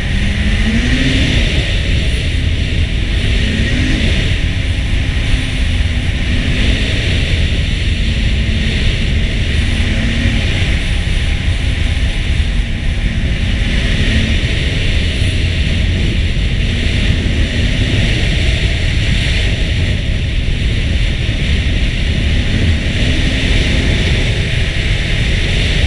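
Ski-Doo Renegade 800 snowmobile's two-stroke twin engine running at trail speed, its pitch rising briefly every few seconds with the throttle, over a steady low rumble.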